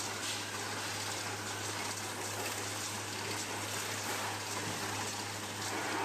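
Metal-spinning lathe running while a hand tool presses against the spinning metal pot blank: a steady low hum under an even, rushing hiss of metal being worked.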